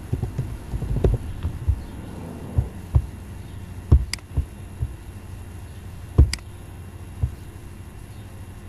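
Computer keyboard keys tapped in a quick run for about two seconds while a phone number is typed, then a few separate knocks and mouse clicks, over a steady low hum.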